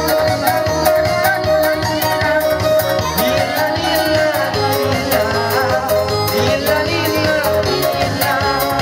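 Upbeat dance music with a fast, steady beat, played over a PA loudspeaker.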